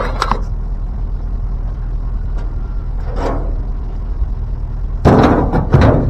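Scrap being thrown into a pickup truck's bed: two loud clattering impacts about five and six seconds in, over a steady low rumble.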